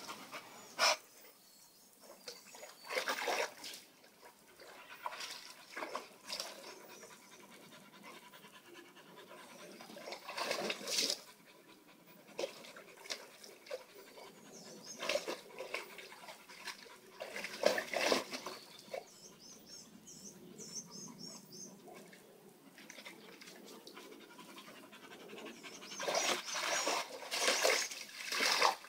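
Dogs panting, with water sloshing and splashing in a plastic kiddie pool as a wet Portuguese water dog shifts about in it. The splashing is loudest near the end, when the dog stands up in the pool.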